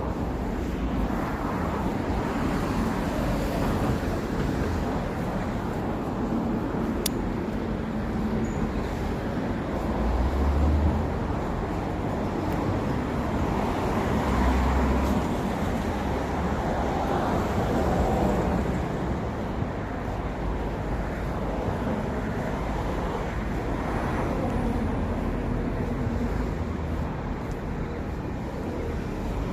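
Street traffic ambience: the steady wash of passing cars and engines, with low rumbles swelling twice near the middle as heavier vehicles go by, and a single sharp click about seven seconds in.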